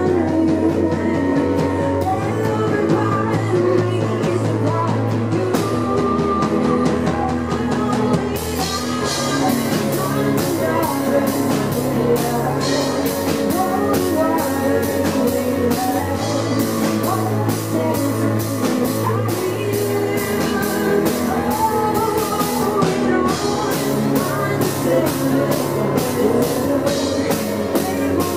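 Live rock band: a woman singing over her keyboard playing, with drums, bass and guitar. About eight seconds in the cymbals come in with a steady beat.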